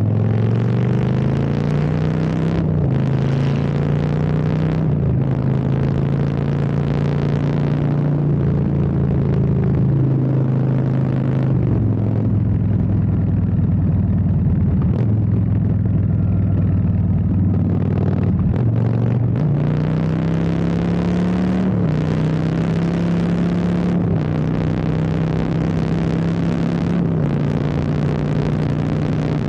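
Custom Harley-Davidson Street Bob's V-twin engine with a Stage 2 upgrade, running through Bassani sweeper exhaust pipes. The engine note steps up and down in pitch repeatedly, rising for a few seconds and then dropping.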